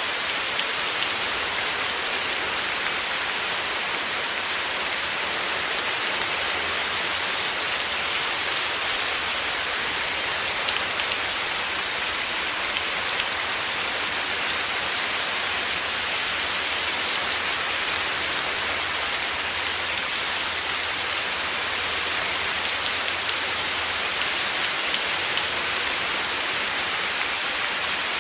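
Heavy rain falling in a steady, even hiss with a dense patter of drops.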